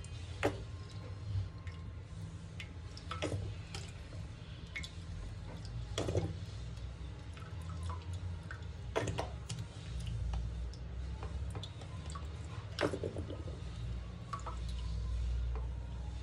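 Drain-cleaner gel squeezed from a plastic bottle into a shower floor drain: sharp drips and clicks every few seconds over a low steady hum.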